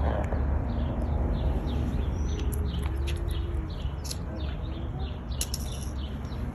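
Small birds chirping in quick, repeated short notes that slide down in pitch, over a steady low rumble.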